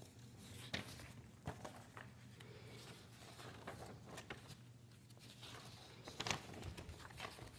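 Very quiet room tone with a faint steady low hum and a few small scattered clicks and soft rustles.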